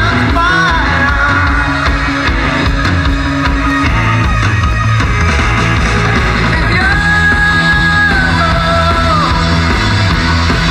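Loud rock music with a singing voice, including one long held note about seven seconds in that then falls away.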